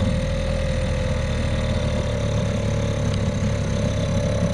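Small outboard motor running steadily, pushing an inflatable dinghy, with its choke partly out to keep it from dying: the motor needs a tune-up.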